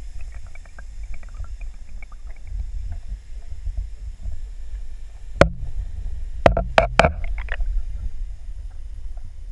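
Underwater camera being drawn through the water alongside a spinnerbait on retrieve: a steady low rumble of water rushing past the housing, with faint ticking early on and a few sharp knocks about midway.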